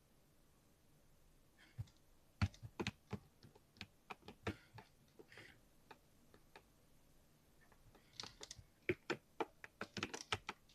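Typing on a mechanical keyboard: irregular keystroke clicks, a few at a time, with a pause in the middle and a quicker run of keystrokes near the end.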